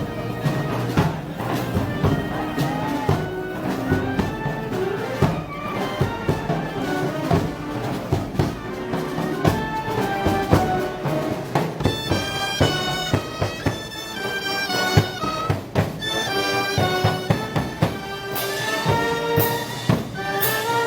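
Festival band music: wind instruments playing a melody over frequent drum beats, changing to a brighter, higher passage about halfway through.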